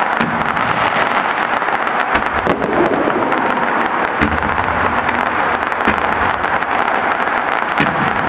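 Fireworks crackling densely: a continuous rush of many small, rapid pops, with a few louder ones standing out.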